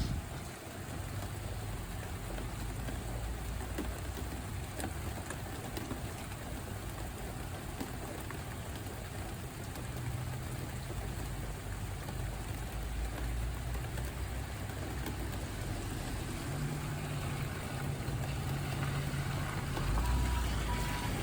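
Steady rain falling, with a low rumble underneath that swells and fades. A faint, evenly repeating beep starts near the end.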